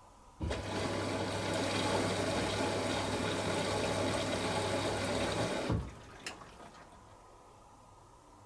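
Beko WTG620M1 washing machine taking in water: a steady rush of water with a low hum starts abruptly, runs about five seconds and cuts off sharply as the inlet valve closes, followed by a single click.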